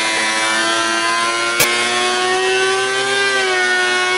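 DeWalt benchtop thickness planer running with a steady, loud whine as a board feeds through it, its pitch lifting slightly about three seconds in. One sharp click about a second and a half in.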